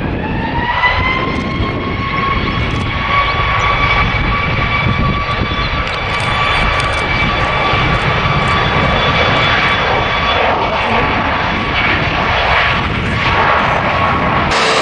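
Boeing 737-8 MAX's CFM LEAP-1B turbofan engines spooling up: a whine rises over about the first second, then holds steady over a deep rumble.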